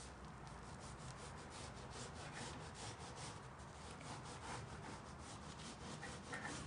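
Knife blade drawn through a stack of buttered phyllo (baklava yufka) sheets, a faint run of quick crisp scratches as it cuts.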